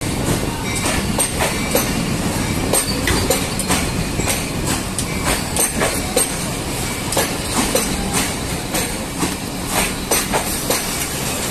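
Railway train running along the track, its wheels clattering with many sharp irregular clicks over a steady rumble.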